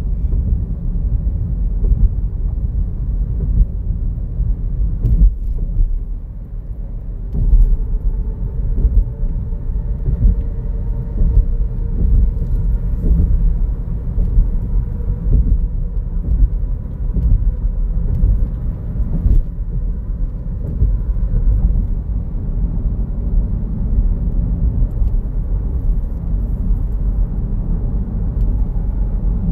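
Car driving at road speed, heard from inside the cabin: a steady low rumble of engine and tyres on the road, with a faint whine for a while in the middle.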